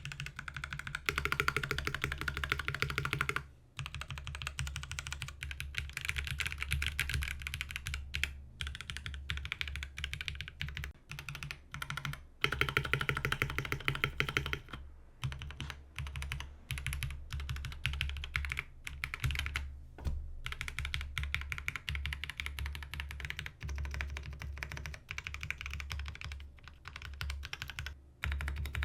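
Fast typing on a Space65 Cybervoyager mechanical keyboard fitted with Akko black and pink double-shot keycaps: a dense, continuous run of key clacks broken by a few brief pauses.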